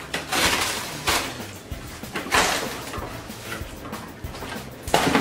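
Cardboard toy box being opened and handled by hand: several bursts of cardboard rustling and scraping, with a sharp knock near the end.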